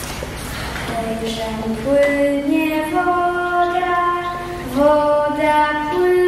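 A woman's voice singing a slow tune in long held notes, starting about a second in.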